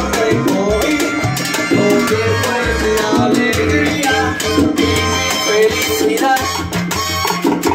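Live salsa band playing: congas and timbales keep a busy rhythm over a moving bass line, with a singer's voice on top.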